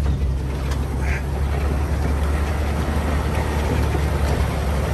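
Jeep Wrangler's engine and drivetrain running at crawling speed up a rough dirt trail, a steady low rumble with road noise.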